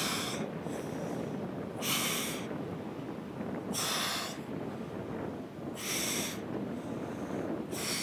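A woman's forceful exhalations during abdominal crunches, one sharp breath out about every two seconds in time with each crunch, over a steady low background rush.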